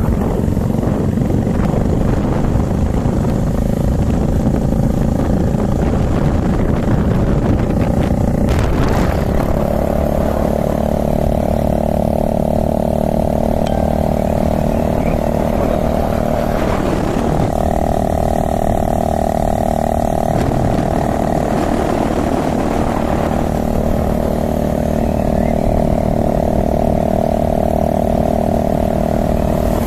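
Motorcycle engine running steadily at cruising speed, heard from the bike itself; its note shifts slightly about nine seconds in.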